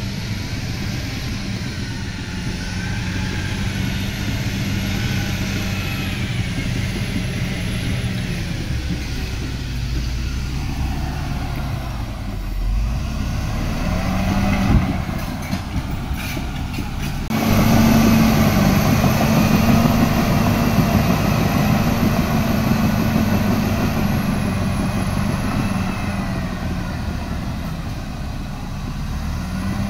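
Caterpillar D7R crawler dozer's diesel engine running under work, its pitch slowly rising and falling. A little past halfway the sound jumps abruptly to louder and fuller.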